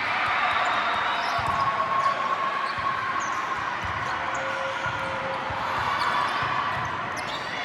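Crowd noise in a large sports hall, with a ball bouncing and shoes squeaking on the court.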